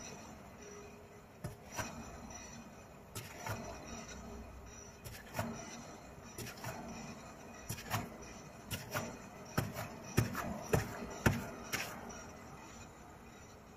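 A car wheel turned by hand on its hub bearing, giving irregular sharp clicks, with a run of louder knocks in the later part. The owner takes the clicking for the sign of a worn wheel hub bearing.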